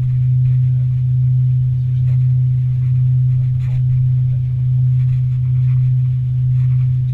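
Steady low drone in the cabin of a four-engine Avro RJ85 jet, its loudness swelling and fading slowly about once a second.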